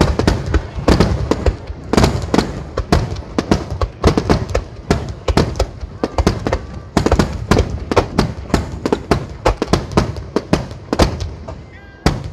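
Fireworks display in full swing: aerial shells launching and bursting in quick succession, a dense run of booms and sharp cracks with short lulls.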